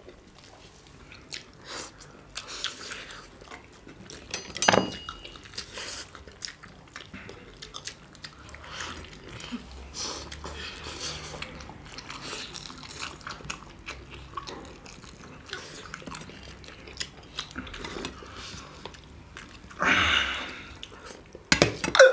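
Two people chewing and biting into big steamed chicken momos and spicy black bean noodles, eaten by hand close to the microphone: a steady run of short mouth clicks and smacks, with a sharper click about five seconds in and a louder burst about twenty seconds in.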